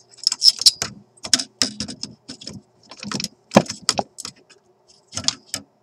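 Irregular metallic clicks and scrapes of pliers and a soldering iron working a capacitor lead on a solder terminal of a radio chassis while desoldering the old capacitor.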